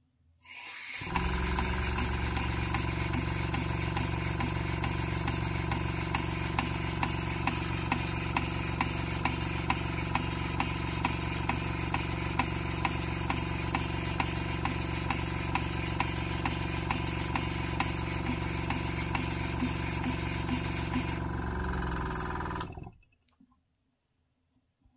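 Model horizontal steam engine with a sleeve piston valve running: a steady hiss with a regular beat that starts up within the first second and stops a couple of seconds before the end. The high part of the hiss drops out just before it stops.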